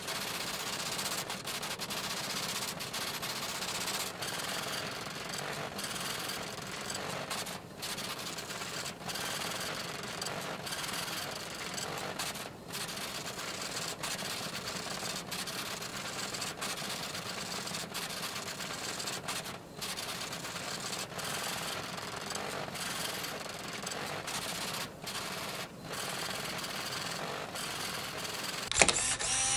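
Rapid, continuous typing clatter, a teletype-style sound effect accompanying text printing onto a computer terminal, broken by a few brief pauses. Near the end it cuts off with a sharp click and a steady electronic hum with several pitches begins.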